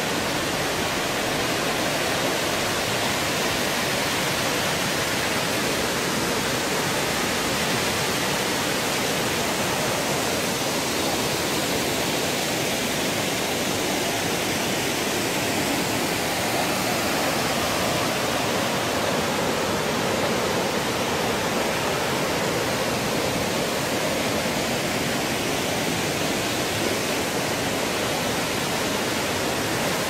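Bigăr waterfall pouring over moss-covered rock into a fast, muddy river: a steady, unbroken rush of falling water.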